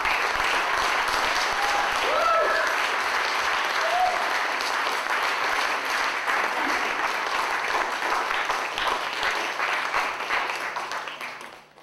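Audience applauding with dense, steady clapping and a few brief shouts from the crowd early on; the applause dies away near the end.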